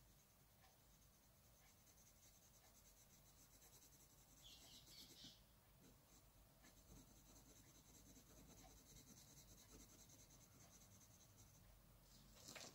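Inktense pencil shading lightly on drawing paper: faint, quick scratching strokes in two stretches, a little louder about four to five seconds in.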